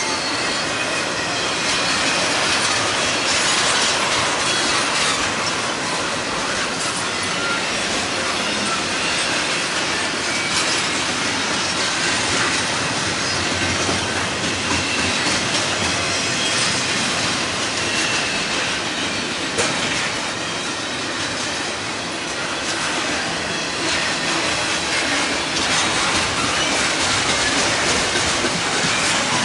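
Double-stack intermodal freight train's well cars rolling past at steady speed: continuous rumble and hiss of steel wheels on rail, with scattered clicks and faint high wheel squeals.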